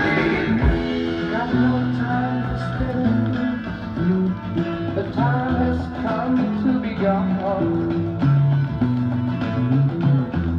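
Hard rock played back from a vinyl LP record: electric guitar and bass with drums, and some singing.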